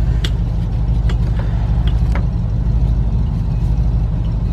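Steady low engine rumble with an even pulse, with a few light clicks of parts being handled.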